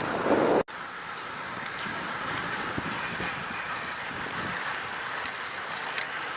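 Wind rushing over the microphone of a camera on a moving road bike, with a steady rush of riding noise. A louder gust in the first half-second cuts off abruptly, then the steady wind rush carries on.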